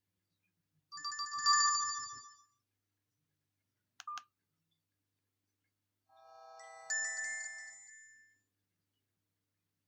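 Alcatel 232 mobile phone ringtones played in turn: a short bright melody of electronic tones, a brief double blip about four seconds in, then another electronic tone melody that begins softly and grows louder, starting over again just after.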